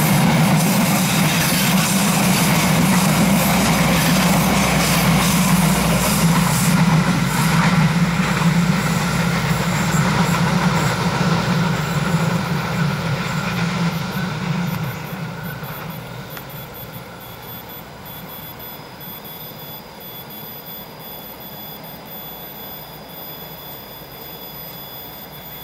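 Indonesian passenger train coaches rolling past close by on a curved track, with loud, steady wheel-on-rail running noise and a heavy rumble. About fifteen seconds in, the sound drops off sharply to a much quieter steady background.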